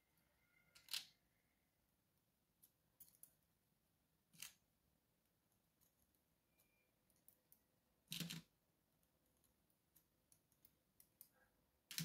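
Near silence broken by a few faint, brief metallic clicks and scrapes, several seconds apart, as a small metal tool works at the sliders and sidebars of a disassembled Evva 3KS lock core.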